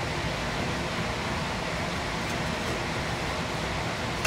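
Steady, even whooshing noise of room ventilation running, with no distinct knocks or clicks.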